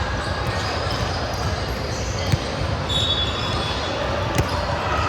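Indoor ball game in an echoing gym: a ball bouncing and thudding over steady background chatter, with a short high squeak about three seconds in and two sharp knocks, one midway and one near the end.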